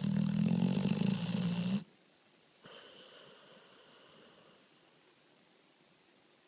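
Pit bull snoring in its sleep: one loud snore of about two seconds, then after a short pause a fainter breath that fades away.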